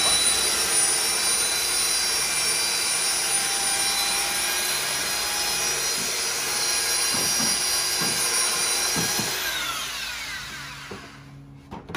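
Ridgid belt sander running on a wooden board, sanding its face with a steady whine. About three-quarters of the way through it is switched off, and the whine falls in pitch and fades as the motor spins down.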